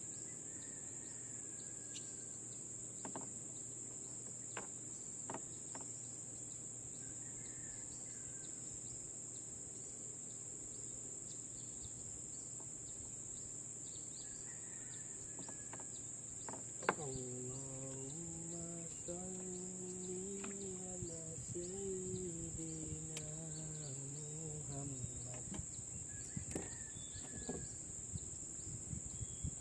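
Insects, crickets among them, trilling in a steady high chorus. A few faint clicks, and from just over halfway, a low pitched drone lasting about eight seconds that steps up and down in pitch.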